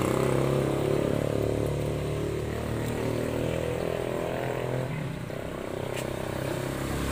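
A vehicle engine idling steadily with a low, even hum that eases slightly about five seconds in.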